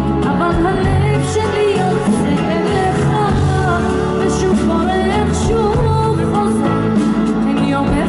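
Live band playing through a PA: electric guitar and bass under a woman's sung, wavering melody.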